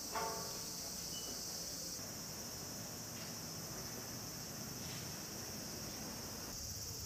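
Steady high-pitched chorus of summer insects, with a short pitched call about a quarter second in and a faint brief chirp just after.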